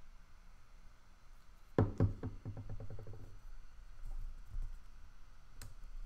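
Wooden popsicle sticks knocking on a wooden tabletop: a sharp knock about two seconds in, then a quick rattle that dies away over about a second and a half, and a light tap near the end.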